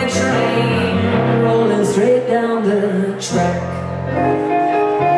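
Live blues band playing: hollow-body archtop electric guitar and electric keyboard, with a voice singing over them. There are sharp accents near the start, about two seconds in and about three seconds in.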